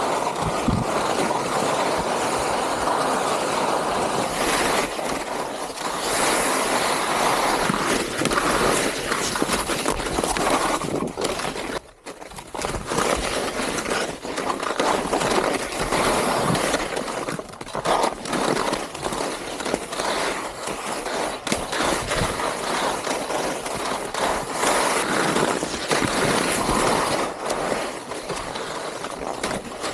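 Touring skis sliding and scraping over snow on a descent: a continuous hiss with uneven scrapes from the edges, and a brief lull about twelve seconds in.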